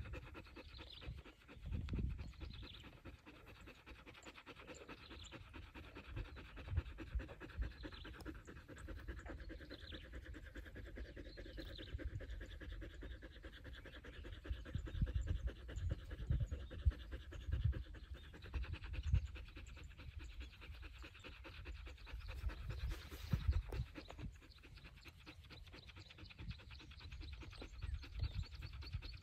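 Dog panting steadily with its mouth open, with irregular low rumbles underneath.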